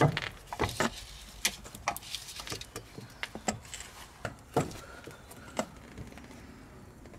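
Irregular small clicks, taps and rubbing as gloved hands push a greased rubber CV boot over a plastic fitting cone on a driveshaft. The handling sounds thin out near the end.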